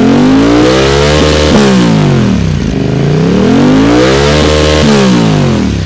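Aprilia RS 457's parallel-twin engine revved twice through an Akrapovič full-system exhaust with stainless-steel headers. Each throttle blip climbs for about a second and a half, then falls back toward idle, with a crisp exhaust note.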